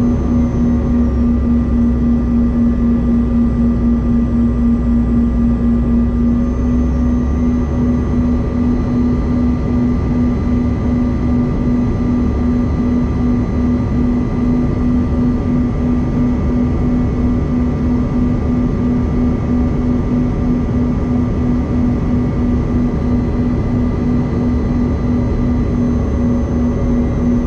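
Cabin noise inside a Bombardier CRJ-200 regional jet descending on approach: a steady rush of airflow with the hum of its rear-mounted GE CF34 turbofan engines and a constant droning tone.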